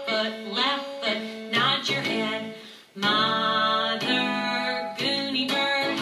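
A children's action song: singing over strummed acoustic guitar, with a short break about three seconds in.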